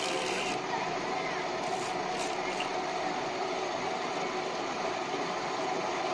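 Cotton candy machine running with a steady whirring noise as its head spins out sugar floss. Voices of people around mix in, and there are a couple of brief rustles near the start and about two seconds in.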